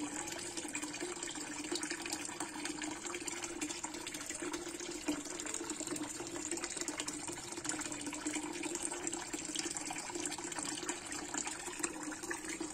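A thin stream of water pouring from a pipe into a koi pond, splashing steadily on the surface.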